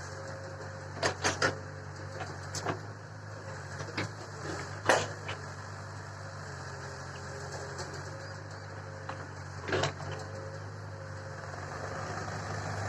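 Heavy machinery's diesel engine running steadily under a series of sharp metallic clanks: three quick ones about a second in, single ones around two and a half, four and five seconds in, and one more near ten seconds.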